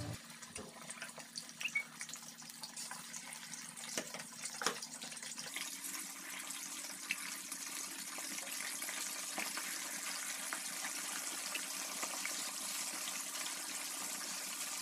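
Toman (giant snakehead) fish steaks deep-frying in hot oil in a wok: a steady sizzle with scattered pops and crackles. The sizzle grows fuller about five seconds in, as more pieces go into the oil.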